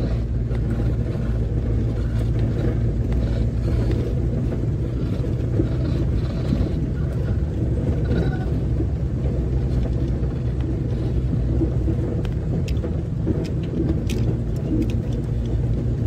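Vehicle engine running steadily with road noise, heard from inside the cab while driving a rough dirt track, with a few light clicks and rattles in the second half.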